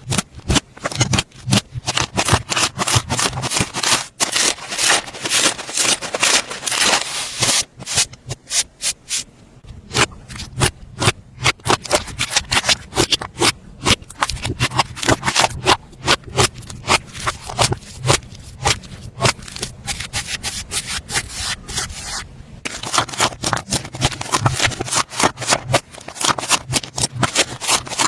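Slime being squeezed and worked by hand, giving a dense run of quick crackling clicks and pops, with a brief pause about three-quarters of the way through.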